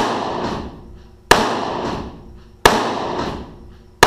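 Ruger GP100 .357 Magnum revolver fired in a steady rapid string, a shot about every second and a third, each with an echoing tail that dies away before the next. The handloads use 9 grains of Power Pistol powder and run 1280 to 1383 ft/s over the chronograph, which the shooter judges "a little bit spicy".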